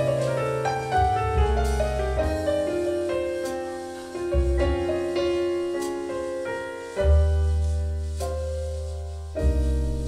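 Piano playing an instrumental passage of a vocal jazz song, with deep bass notes underneath, the longest held from about seven seconds in.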